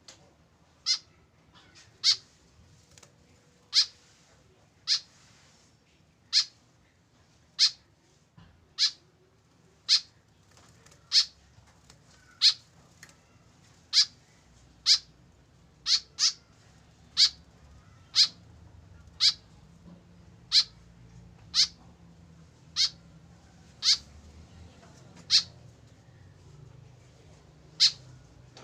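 White-breasted woodswallow giving short, high single calls, about one a second, over and over.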